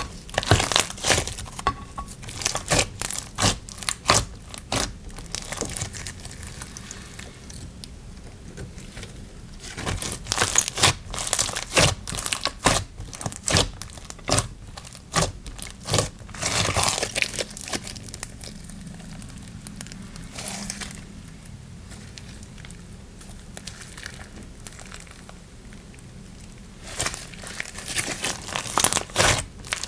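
Slime being squeezed, stretched and poked by hand, making sticky crackling clicks and pops. They come in clusters, with quieter stretches between.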